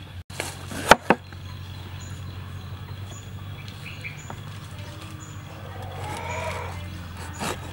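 Cleaver chopping through bell peppers onto a wooden cutting board: two sharp knocks about a second in and another near the end, with softer cutting sounds between.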